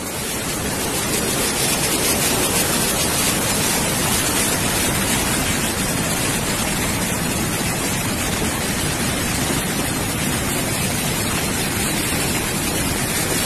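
Muddy floodwater rushing in a swollen river torrent: a loud, steady wash of water noise that swells up over the first second or so.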